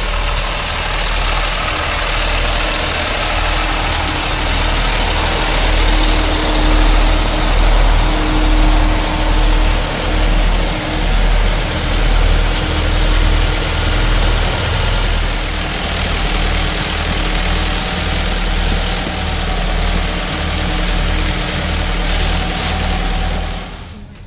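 A loud engine running steadily at idle, with a regular low throb; the sound stops suddenly near the end.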